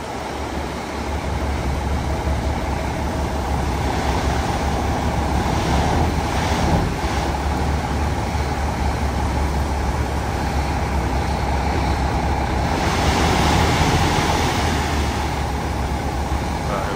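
Diesel semi truck running steadily with its end-dump trailer tipped up, gravel sliding out of the back. A rushing noise swells about six seconds in and again from about thirteen seconds.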